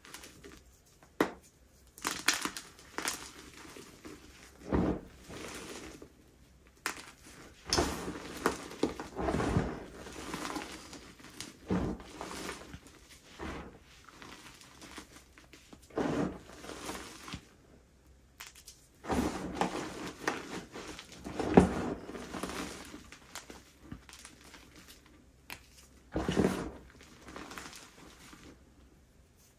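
Baked, dyed gym chalk being crushed: bursts of crunchy, flaky crumbling at irregular intervals with short pauses between, the loudest crunch a little past the middle.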